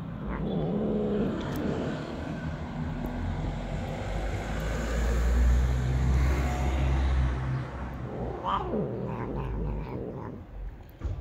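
Tabby-and-white street cat eating wet food and giving low, moaning vocal sounds as it eats, with a short higher call about eight and a half seconds in. A low rumble swells through the middle and is the loudest sound.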